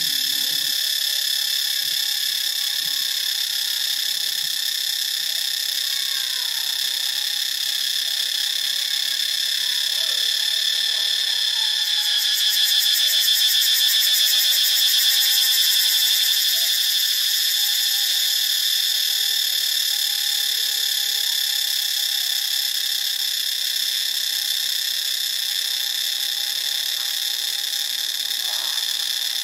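Cicadas singing: a loud, steady, shrill buzz that swells louder for a few seconds near the middle, then settles back.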